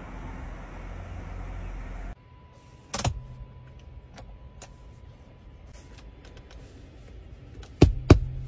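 A small electric motor in the car door whirs steadily for about two seconds and cuts off, followed by a click about three seconds in and a few faint ticks. Near the end come two sharp thumps, a hand slapping a leather seat cushion.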